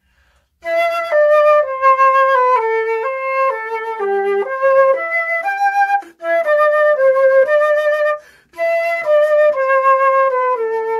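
Silver concert flute playing a melody of separate notes in the middle register, in three phrases with short breaks for breath about halfway through and again about three-quarters through.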